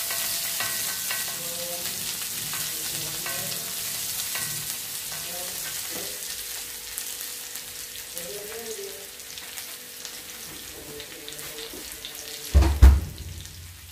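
Sliced onions and mustard seeds sizzling in hot coconut oil in a black iron kadai, stirred and scraped with a wooden spatula for the first few seconds. The sizzle then carries on alone and slowly fades. Near the end there is a single loud low thump.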